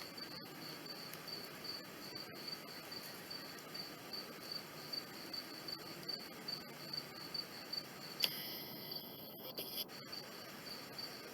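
A cricket chirping steadily at about three chirps a second. About eight seconds in there is a sharp noise, followed by a hiss that lasts about a second and a half.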